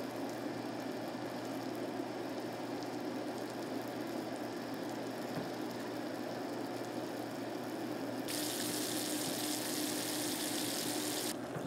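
Sugar-and-water syrup boiling hard in a stainless steel saucepan over high heat: a steady bubbling hiss, the early stage of cooking caramel. About eight seconds in it turns brighter and hissier, with a faint steady tone underneath, for about three seconds.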